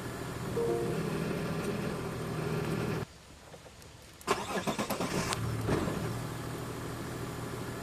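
Car engine running steadily, then cutting to near quiet for about a second and coming back with a short burst of clattering knocks before running steadily again.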